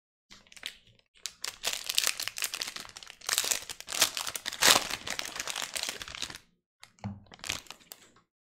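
Trading-card pack wrapper crinkling as it is torn open and pulled off by hand: several seconds of dense crackling, then a few shorter rustles near the end.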